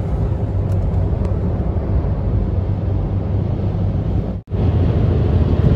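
Steady road and engine noise inside a car's cabin at highway speed, with a low hum. It cuts out for an instant about four and a half seconds in, then carries on.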